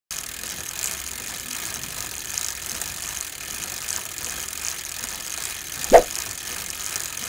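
Logo-intro sound effects: a steady mechanical ratcheting with a hiss, then about six seconds in a short, loud hit that drops quickly in pitch.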